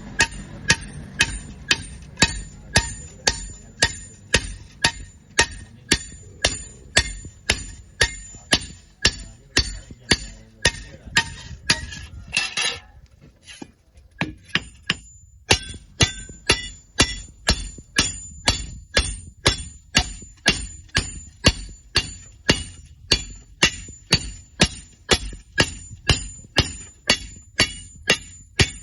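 A hammer striking iron at a steady rhythm, about two ringing blows a second, with a short pause near the middle before the blows start again.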